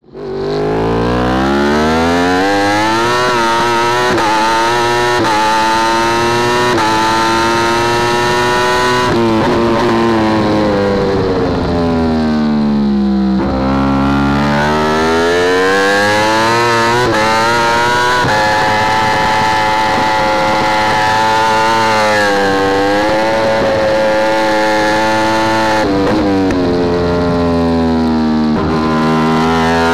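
Yamaha R1 superbike's inline-four engine at full race pace, heard onboard. It revs up through the gears with a quick upshift every second or two, then winds down through downshifts under braking about halfway through before climbing again. It falls away once more near the end.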